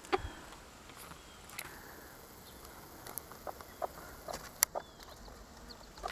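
Faint, brief peeps of bantam chicks, with scattered soft taps and clicks as the chickens move and peck in the straw bedding; the loudest click comes a little past halfway.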